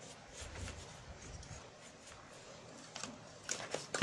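A brush scrubbing lightly over a CRT TV circuit board, with faint handling noise and a few sharp clicks near the end.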